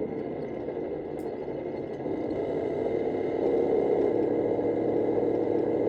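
Simulated tank engine sound played through the speaker of a Tamiya 1/16 Centurion Mk3 model's sound control unit, with no gearbox or motor noise, revving up as the throttle is opened and growing louder in steps about two seconds in and again after three and a half seconds.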